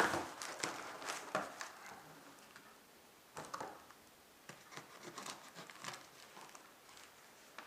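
Packaging being handled and unwrapped: irregular crinkles, rustles and light knocks, busiest in the first couple of seconds and then thinning to occasional crackles.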